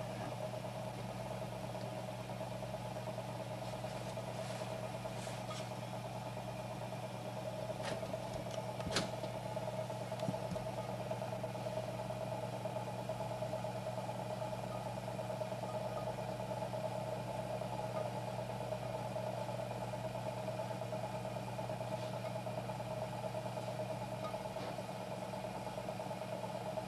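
Electric potter's wheel motor running with a steady hum while clay is thrown, with a few faint clicks partway through.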